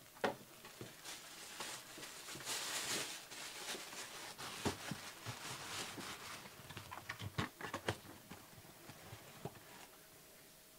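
Faint handling noises: scattered light taps and clicks, with a brief rustle about two and a half seconds in and a quick run of clicks around seven to eight seconds in.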